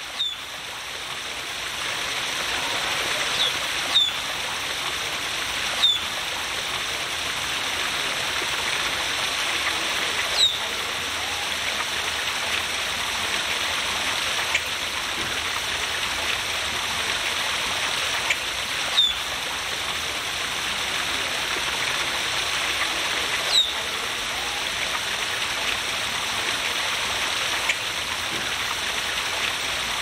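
Steady splashing of a small waterfall spilling over rocks into a pond, rising in over the first couple of seconds. A bird gives a short, high, falling chirp every few seconds.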